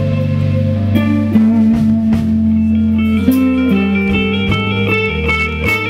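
Rock band playing live: electric guitars ringing out chords and held notes over a steady bass line, changing chords every second or so.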